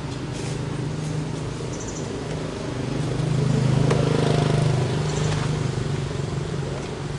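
Engine of a passing motor vehicle, a steady low drone that grows louder toward the middle and then fades away.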